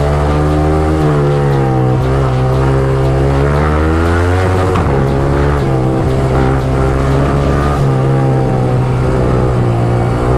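Yamaha R15M motorcycle's single-cylinder engine running while being ridden, its pitch rising and falling with the throttle.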